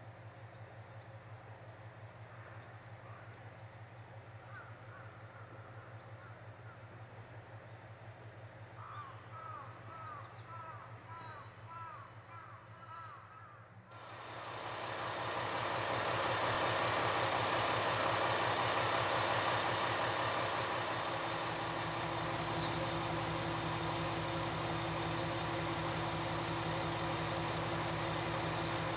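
Crows cawing in a quick series over a low steady hum. About halfway through, the sound changes to the steady running of a JR KiHa 120 diesel railcar's engine, idling at a station platform.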